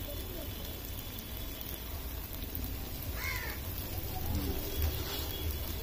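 One short bird call about three seconds in, over a steady low rumble, with faint voices near the end.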